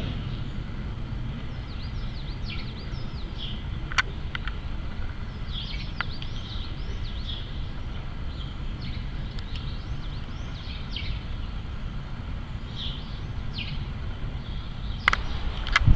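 Low steady rumble of a jet airliner flying high overhead, with small birds chirping repeatedly throughout. Two sharp clicks come about four and six seconds in, and a louder noise starts near the end.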